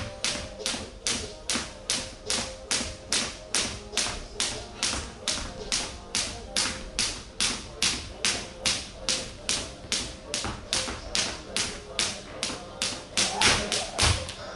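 Skipping rope slapping a hard gym floor in a steady rhythm, about two and a half times a second. Near the end the slaps come quicker and louder, and a low thump follows.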